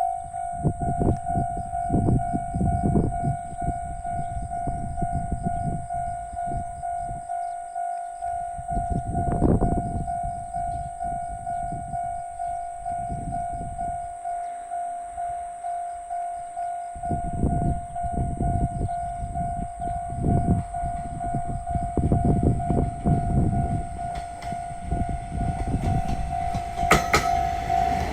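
Japanese railway level-crossing warning bell ringing steadily at about two strikes a second, one unchanging tone. Low rumbling comes and goes beneath it, and near the end a train reaches the crossing with a rising clatter of wheels.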